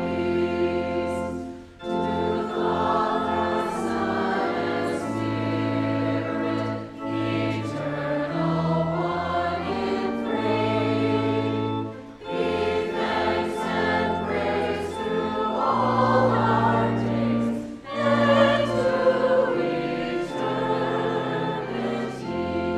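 A church choir singing a hymn with instrumental accompaniment, in sustained phrases with brief breaks between them.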